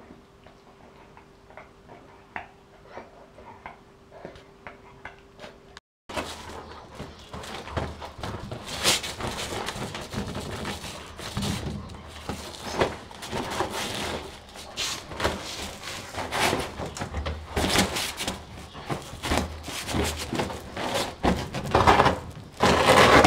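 Pregnant dog digging, tugging and dragging cushions and blankets in nesting before whelping: irregular scraping and rustling of fabric and padding with knocks and thumps. The first few seconds are quieter, with faint light ticks; from about six seconds in it gets much louder and busier, with the loudest bursts near the end.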